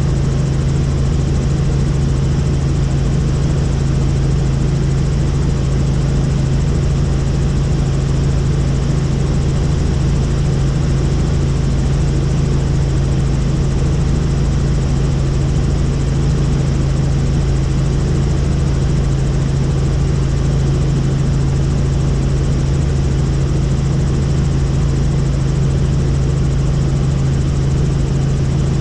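Helicopter in flight, heard from on board: a loud, steady drone of the turbine and rotors with a strong low hum, unchanging throughout.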